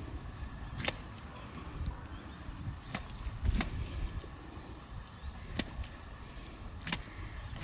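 Open-field ambience: a low, uneven rumble with faint short high chirps now and then and about five sharp clicks spread through it.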